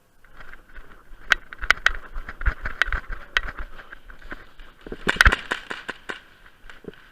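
Airsoft guns firing irregular single shots: sharp cracks over a rustling background, with a dense cluster about five seconds in.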